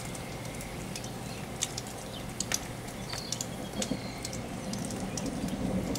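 Steady rain falling during a thunderstorm, with scattered sharp raindrop ticks. A low thunder rumble starts to swell near the end.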